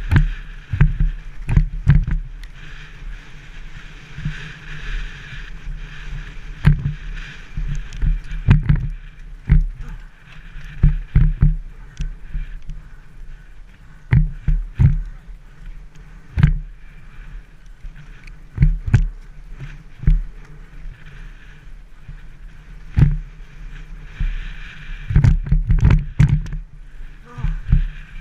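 Mountain bike ridden fast down a leaf-covered forest trail, heard from a helmet camera: a steady rush of wind and tyre noise with frequent, irregular thuds and rattles as the bike hits bumps in the trail.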